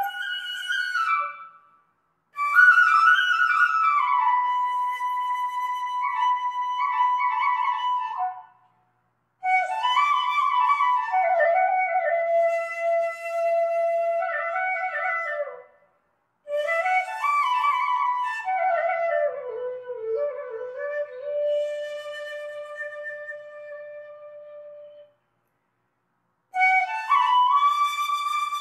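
Background music on a solo flute: a slow melody with gliding notes, played in long phrases with short breaks of silence between them.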